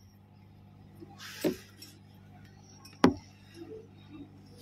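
Two sharp clinks about a second and a half apart inside a train coach, over a faint steady hum.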